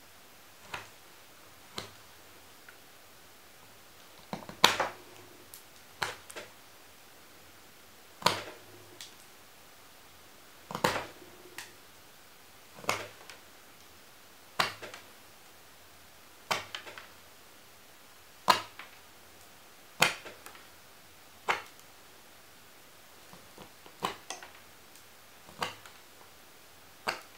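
Carving knife slicing finishing cuts from a wooden spoon: short crisp cuts every second or two, some coming in quick pairs or threes.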